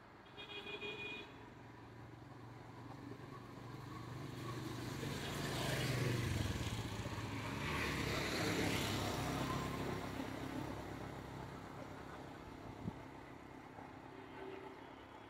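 A motor vehicle passes close by: its engine and tyre noise build to a peak in the middle and then fade away. There is a short high beep near the start.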